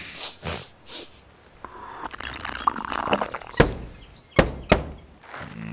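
Three short slurping sips of tea from a cup, then a softer noisy stretch, then three sharp knocks of a metal ring door knocker against a wooden door.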